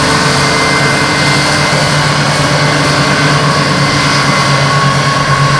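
A steady, loud motor-like drone: a low hum with hiss over it and a faint whining tone, unbroken throughout.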